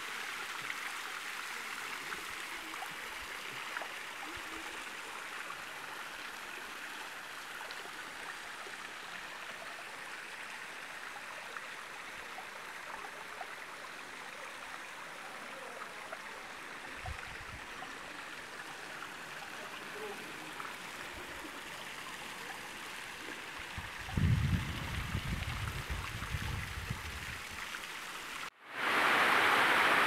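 A thin seasonal waterfall trickling down a limestone rock face: a steady splashing hiss of running water, with a low rumble for a few seconds near the end. In the last second, after a short break, a small brook is heard close up, louder and brighter.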